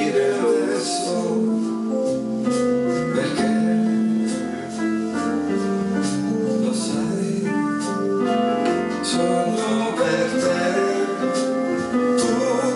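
Electronic keyboards, a Roland E-86 and a second keyboard, playing a slow instrumental passage of held chords over a bass line with a melody on top.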